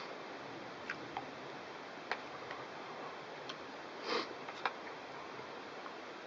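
A wooden spoon clicking against a metal plate a few times while eating, over a steady faint hiss. A short nasal sniff about four seconds in, from a man with a cold.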